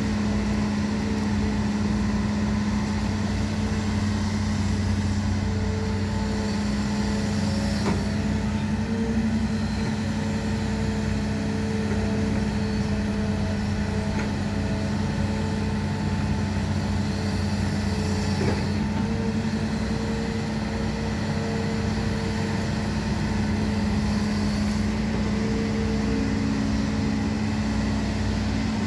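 Hitachi Zaxis 210LCH excavator's Isuzu diesel engine running steadily under working load as it digs, a constant hum with a few held tones over it. Two brief knocks, one about a third of the way through and one about two-thirds through.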